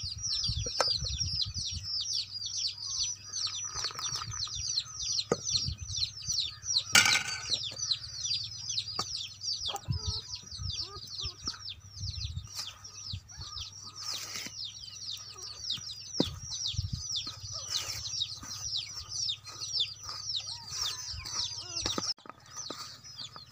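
Many birds chirping in a dense, unbroken stream of quick, high, falling chirps, with occasional knocks and scrapes of a metal slotted ladle stirring flour in a steel plate.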